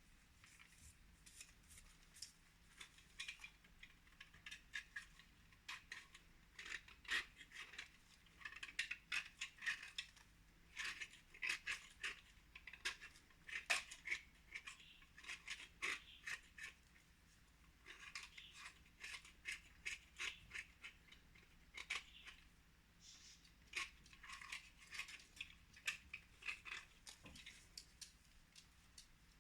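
Quiet, irregular run of crisp clicks and short scratching strokes, coming in quick clusters with brief gaps, like small hard things being handled or scraped.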